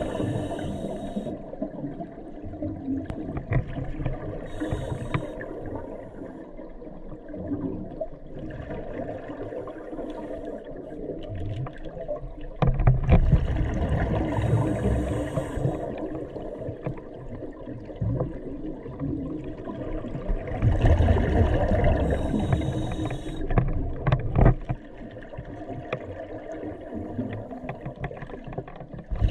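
Scuba diver's regulator breathing, heard underwater through the camera housing: bursts of exhaled bubbles gurgling and rumbling, with hissing breaths, recurring every several seconds over a steady murky water noise.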